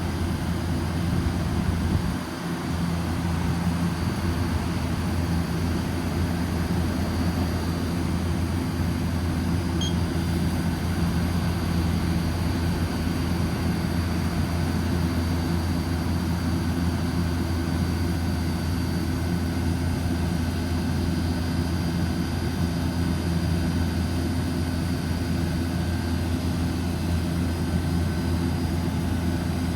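Orion RKE2200B1-V-G2 inverter chiller running on a test run: a steady machine hum with a faint high whine over it, unchanging throughout.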